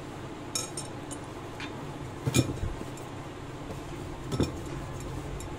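A few scattered light clinks and knocks of kitchen utensils, a spoon against a steel bowl and a wooden rolling pin on the work surface, over a faint steady background hum. The loudest knock comes about halfway through.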